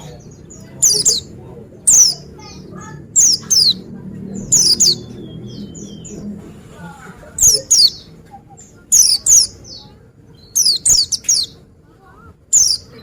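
Pleci (white-eye, Zosterops) singing: loud, very short, high chirps that fall steeply in pitch. They come singly, in pairs and in quick runs of three, roughly one group a second, with softer twittering in between.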